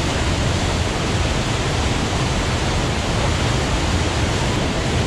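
Waterfall rushing, a loud steady noise with no break.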